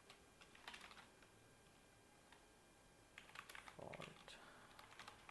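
Faint computer keyboard typing in two short runs of keystrokes, about half a second in and again around three to four seconds in, with a quiet gap between.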